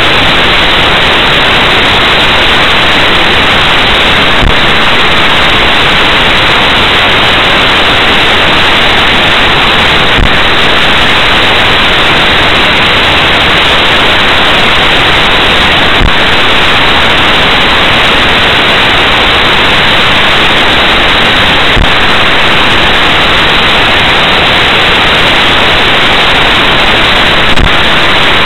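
Loud, steady static hiss from a dashcam's recording, with a faint click about every six seconds.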